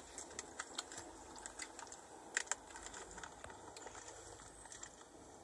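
Faint, irregular light clicks and taps of sweets and their packaging being handled by hand, with one sharper click about two and a half seconds in.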